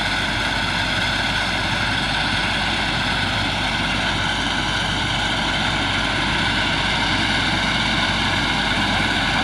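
Combine harvester's engine running steadily at a constant speed, a continuous mechanical drone.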